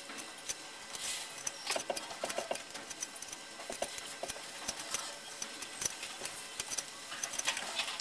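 Fire cement being scraped from a plastic tub with a small knife and pressed into the stove's flue collar: scattered light scrapes, clicks and squishes. Near the end, the steel reducing ring is set down into the cemented collar with a few metal knocks.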